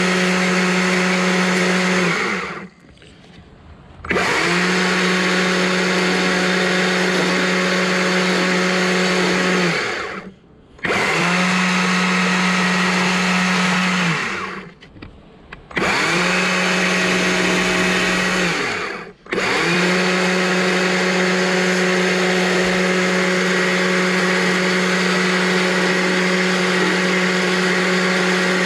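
Stihl two-stroke carving chainsaw held at high revs as it cuts into a small wooden owl carving. The pitch stays level during each cut. Four times the throttle is let off and the engine sinks toward idle for a moment before revving back up for the next cut.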